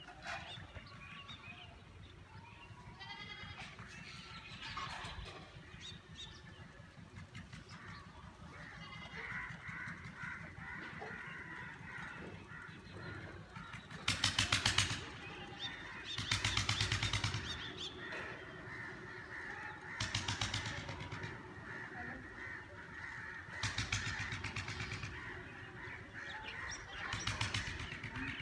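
Harsh, buzzy animal calls, about five loud ones spaced a few seconds apart from about halfway in, over a continuous background of fainter calls.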